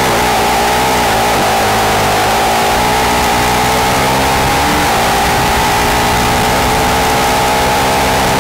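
Formula SAE race car's engine running hard at fairly steady revs, heard from the open cockpit while driving a cone course. Its pitch sags a little about two seconds in and climbs again about five seconds in.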